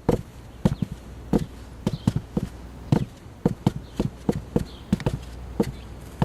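Horse hooves clip-clopping on hard ground, an uneven run of sharp knocks a few times a second.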